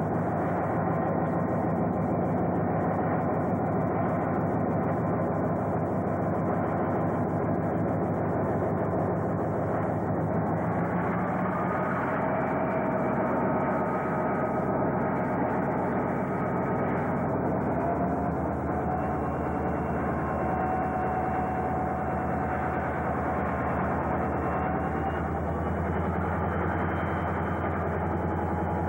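Diesel railway locomotive engines running under way as a train moves along, a steady low engine rumble with no break.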